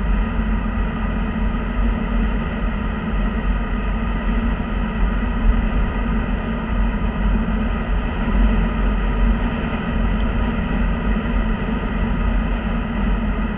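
Steady road noise heard inside a car cruising on a highway: a constant low drone of tyres and engine.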